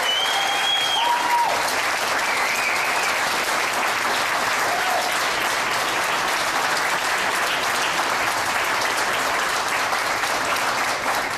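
Audience applauding steadily, with a few voices calling out in cheers in the first second or two.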